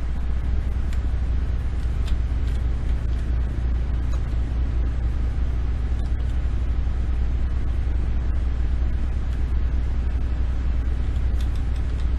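Steady low rumble with a hiss over it, unchanging throughout, with a few faint clicks from the keyboard keys being pressed.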